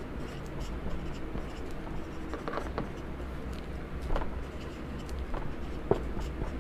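Marker pen writing on a whiteboard: short scratchy strokes and taps of the tip as figures are written, with a few sharper ticks scattered through.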